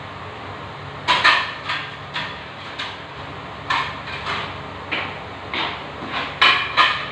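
Kitchen clatter of metal pots and utensils knocking and scraping: about a dozen short clanks at irregular intervals, some briefly ringing, the loudest pair near the end, over a low steady hum.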